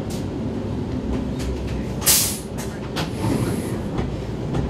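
Vienna U-Bahn train standing at a station platform: a steady low rumble, with a short loud hiss about two seconds in and a fainter, higher hiss about a second after it.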